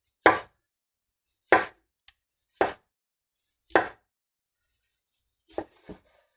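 Long kitchen knife slicing through a tomato and knocking on a wooden chopping board: four sharp knocks about a second apart, then a few softer knocks near the end.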